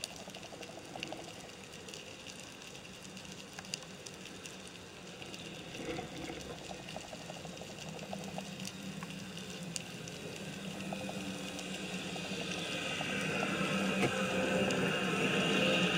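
Underwater sound picked up by a camera in a waterproof housing: a steady watery hiss with scattered faint clicks. Over the last few seconds a rush of noise swells as the housing pushes through seagrass blades.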